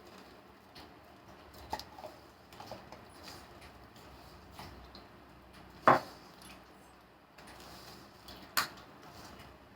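Vada mixture of soaked moong dal, flour and onion being mixed in a bowl, with a few short clicks and knocks of utensils against dishware; the loudest knock comes about six seconds in and another sharp one about a second and a half later.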